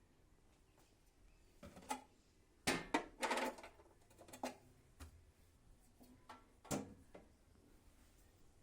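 Handling noises: a few sharp knocks and clicks, with a short cluster of rattling clicks about three seconds in and a last knock near the end.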